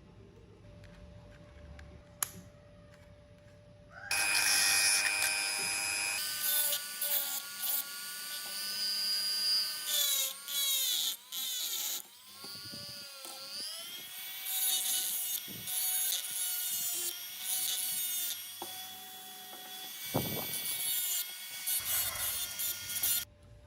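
A small high-speed electric power tool starts about four seconds in and runs in spells. Its whine dips and recovers as it is pressed against the work and eases off, and it stops shortly before the end.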